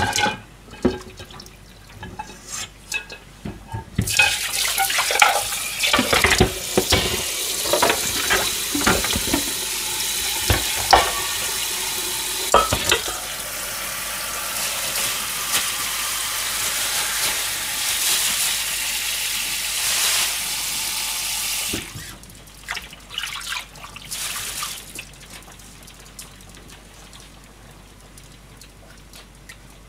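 Kitchen tap running into a stainless steel sink, the water falling onto boiled cabbage leaves in a steel bowl. It comes on about four seconds in and is shut off a little past twenty seconds. Knocks of pots and dishes handled in the sink sound over the running water in its first half.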